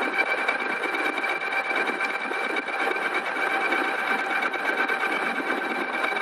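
Ride1up Revv1 e-bike's electric motor whining steadily at full throttle, held at its top speed of about 36 mph, over a rush of wind and road noise.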